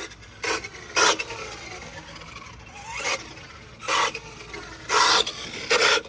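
Traxxas 4-Tec RC car drivetrain giving short, harsh rasping grinding bursts, about six in a few seconds, each as it is driven hard. The owner traces the noise to the rear differential, which is leaking its oil, and thinks gears may be grinding there.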